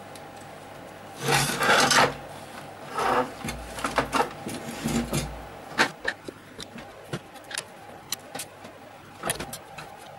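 A VHS video recorder's plastic chassis and circuit board being handled and shifted on a wooden workbench. There is a loud scraping rub about a second in, more rubbing around three seconds, then scattered clicks and knocks of plastic, metal and tools.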